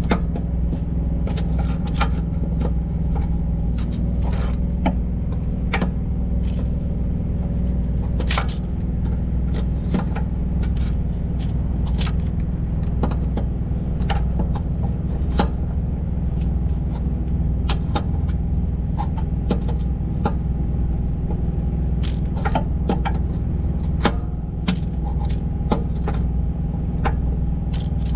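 A truck's diesel engine idling steadily, with scattered metallic clinks of a crescent wrench working the air spring's mounting nuts.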